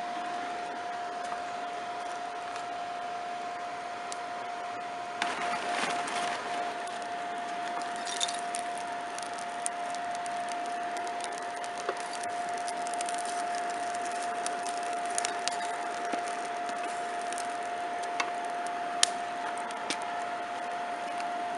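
Coal forge fire burning under a steady air blast: a constant whine and rush of air, with scattered crackles and pops from the coals.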